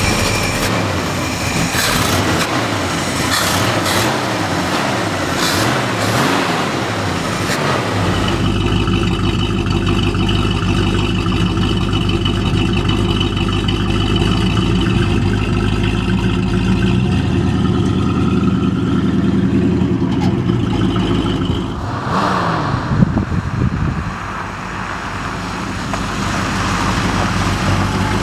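1969 Shelby GT350's 351 V8 running through its dual exhaust, just after starting. It is blipped and revved for the first several seconds, then idles steadily for a long stretch. Around twenty-two seconds in the note changes briefly, then builds again as the car pulls away.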